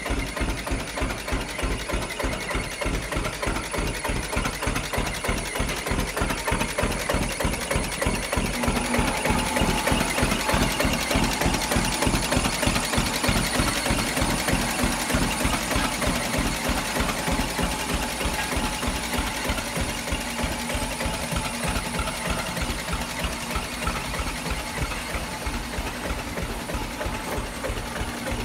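John Deere B's two-cylinder engine running at a slow idle with an even, pulsing beat.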